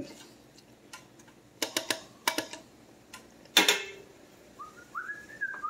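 A cooking spoon taps against the rim of a stainless steel soup pot in a few quick clicks, then gives one louder clank with a short ring. Near the end a series of short, rising whistled notes begins.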